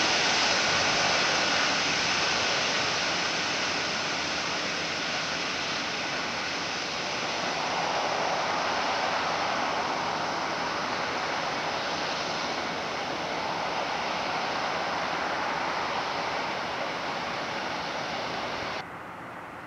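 Airbus A400M's four Europrop TP400-D6 turboprop engines running as it taxis away, a steady propeller and turbine noise with a high whine. The noise eases slightly at first and drops abruptly near the end.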